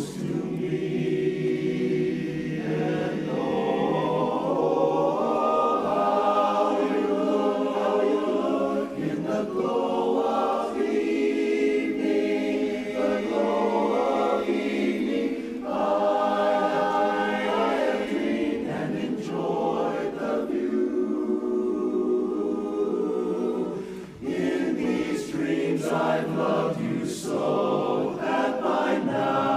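Barbershop chorus singing a cappella in close four-part harmony, with one short break in the singing about five seconds before the end.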